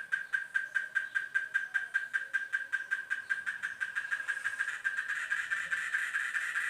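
Cicada singing: a pulsing call held at one pitch, the pulses coming faster and louder as it goes.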